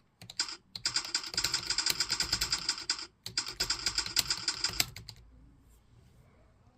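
Fast typing on a computer keyboard: a rapid, dense run of key clicks with a brief pause about three seconds in, stopping about five seconds in.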